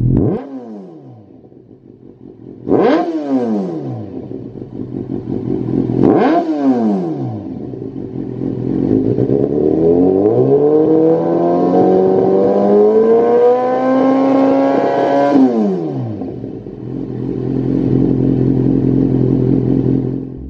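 Kawasaki Z800's inline four-cylinder engine running through a Lextek GP8C carbon-fibre aftermarket silencer while the bike stands still. The revs fall back to idle at the start, then two sharp throttle blips come about three and six seconds in. After that the revs climb slowly and are held high for several seconds, then drop back to a steady idle.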